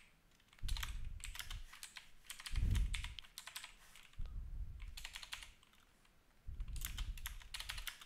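Computer keyboard typing in several quick bursts with short pauses between, the keystrokes landing with a low thud beneath the clicks, heaviest a little under three seconds in.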